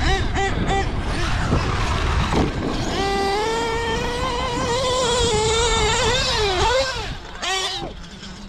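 Losi 8ight-XT truggy's Novarossi .28 two-stroke nitro engine revving: the throttle is blipped a few times, then held for a few seconds at a high, steady pitch, then backed off with one more short rev near the end.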